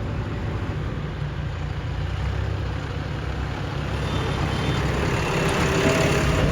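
Heavy diesel engine running steadily, growing louder over the last couple of seconds, with a faint thin whine coming in about four seconds in.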